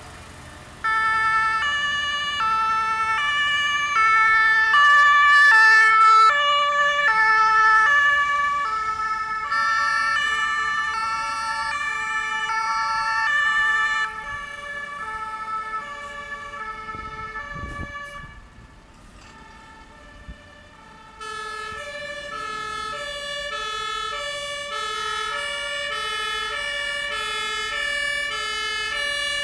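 German two-tone emergency sirens (Martinshorn) on the passing vehicles, each switching back and forth between a high and a low note. Several sound at once, out of step with each other. They fade away a little past halfway, and after a few seconds' lull another two-tone siren starts up and keeps going.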